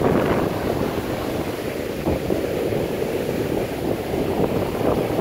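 Heavy surf breaking and washing up the sand, a continuous churning rush that swells and eases, with wind buffeting the phone's microphone.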